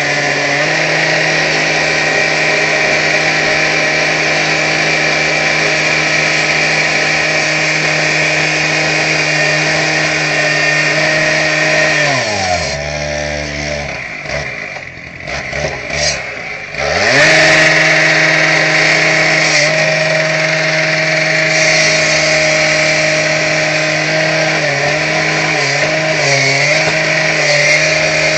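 Electric grinder with a masonry blade, running under load as it cuts into brick and mortar. Its motor drops in pitch about halfway through as it slows, then picks back up to full speed a few seconds later and keeps cutting.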